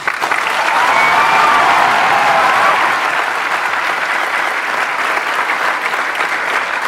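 A large audience clapping steadily, with some voices cheering and laughing over the applause in the first few seconds.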